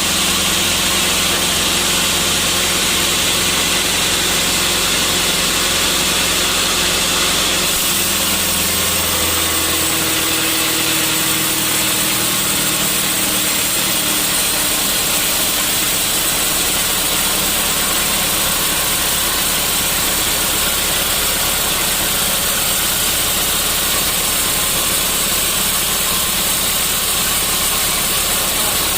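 Sawmill machinery running with a loud, steady mechanical noise and hiss. About eight to ten seconds in, the low hum drops away and a tone slides down in pitch, as a motor slows.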